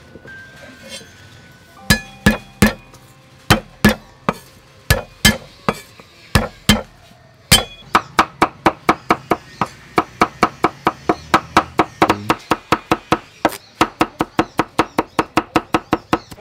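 Cleaver chopping garlic on a wooden chopping board: a few separate knocks, then about halfway through a rapid, even run of about four strikes a second.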